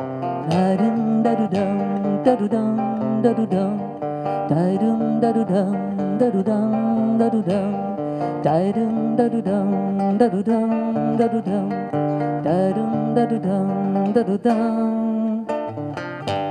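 Acoustic guitar playing a repeating rhythmic figure, an instrumental passage between verses of a live sung song.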